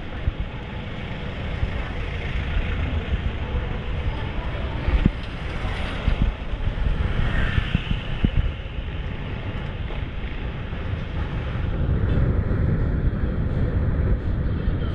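Wind and road rumble on an action camera's microphone during a bicycle ride, with traffic noise and a few short knocks about five to eight seconds in.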